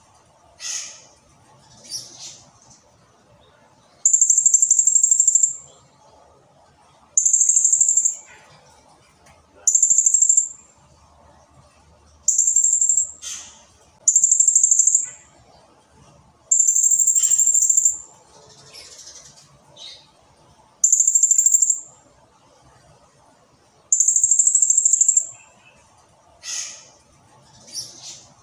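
Blue-crowned hanging parrot (serindit) calling: loud, shrill, high-pitched rapid trills about a second long, repeated every two to three seconds, with short downward-sweeping chirps between them.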